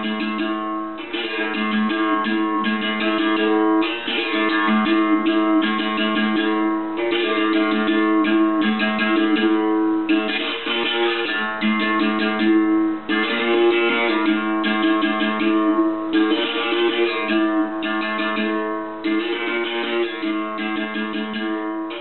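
Background music: an acoustic guitar playing plucked and strummed chords that change every second or so.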